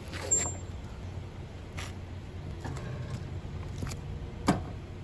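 Heavy touring motorcycle being pushed backward by hand with the engine off: a steady low background with a few scattered scuffs and clicks as it rolls, and a sharper knock near the end.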